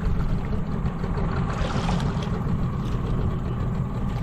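A boat's outboard motor running steadily at low speed, a continuous low rumble.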